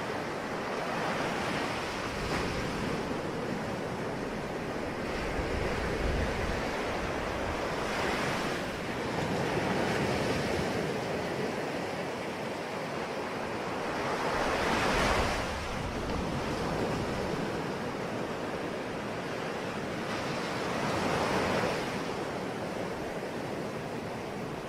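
Ocean waves breaking and washing up on the shore in a steady surf, each wave swelling and fading every few seconds, the biggest about midway through. Wind is mixed in.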